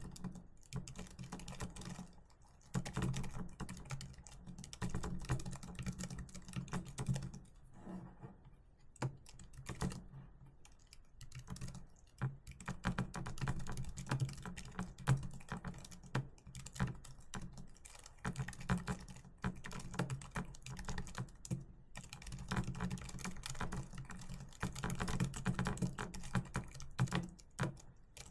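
Typing on a keyboard: a steady, fast run of key clicks, thinning out briefly about a third of the way through before picking up again.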